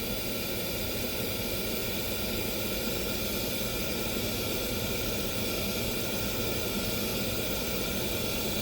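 White noise test signal from a noise generator playing through a car audio system's speakers: a steady, even hiss with no change in level.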